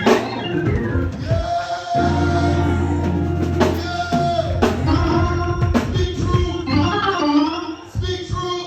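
Gospel organ playing sustained chords and bass notes, with drum strokes cutting through.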